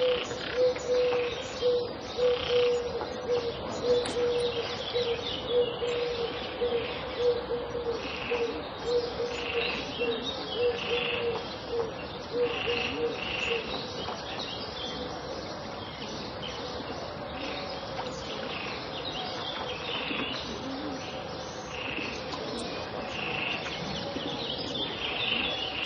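Pond ambience with various birds calling: short high chirps repeat about once a second throughout, over a low pulsing call that stops about halfway through.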